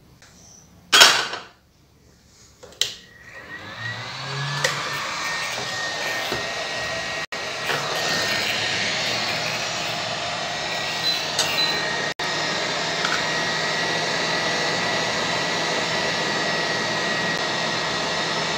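A hot-air rework gun blowing a steady hiss with a faint high whine, heating a surface-mount chip to desolder it from a laptop motherboard; the airflow builds up about three seconds in. A short loud noise comes about a second in.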